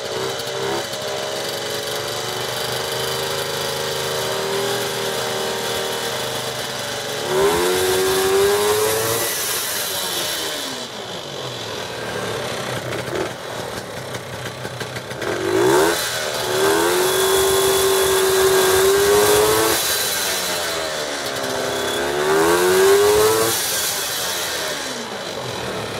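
1971 Ski-Doo TNT 292 snowmobile's two-stroke engine idling, then revved up three times, its pitch climbing and falling back to idle each time. The second rev is held longest.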